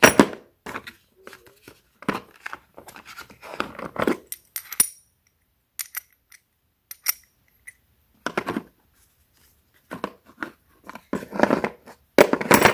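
Steel adapter discs and threaded spindles of a brake caliper piston wind-back tool kit clinking and knocking as they are handled and set into their plastic case. The sounds come as irregular clusters of clicks and clatters, some with a brief metallic ring.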